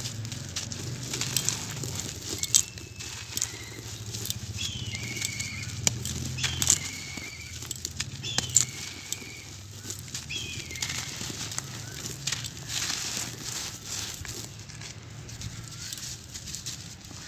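Hands crushing and crumbling dry, dusty sand-cement clumps: a continuous gritty crackling and crunching with dust pouring, broken by a few sharper snaps as chunks break apart.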